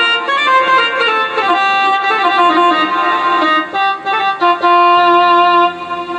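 Roland XPS-10 keyboard played as a slow melody of held notes on a reedy, accordion-like voice, with a few key clicks. The keys now sound and stop normally: the stuck and silent notes are fixed after removing broken washer pieces that were jamming the key mechanism.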